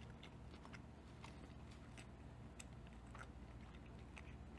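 Faint chewing close to the microphone: soft, irregular little crunches and mouth clicks from a mouthful of chicken-shell taco, over a low steady hum.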